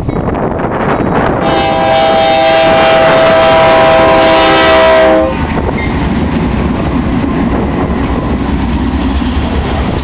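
BNSF freight locomotive's air horn sounding one long, steady chord of several notes for about four seconds, the loudest sound here, then cutting off sharply. The passing locomotives and train rumble on close by after it, with the clickety-clack of wheels on rail.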